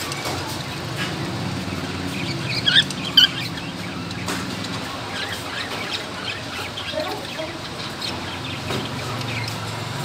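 Cockatiel giving two short chirps about half a second apart, nearly three seconds in, over a steady low hum.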